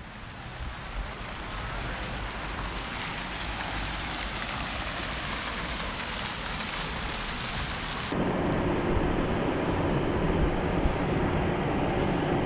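Steady rushing water noise that fades in at the start. About eight seconds in it switches abruptly to a heavier, duller rush.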